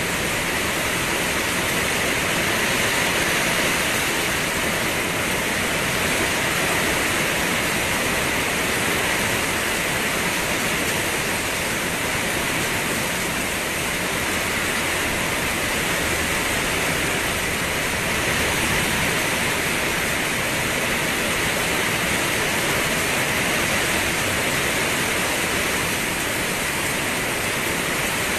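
Steady rain falling, an even hiss with no separate drops or other sounds standing out.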